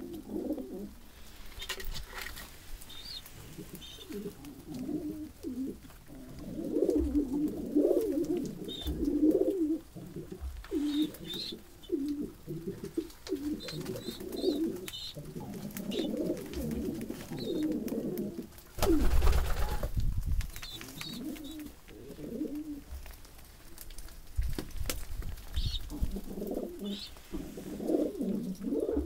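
A flock of domestic pigeons cooing, many calls overlapping in a continuous low warble, with a few short high notes. About two-thirds of the way in, a loud rush of noise lasting about a second stands out above the cooing.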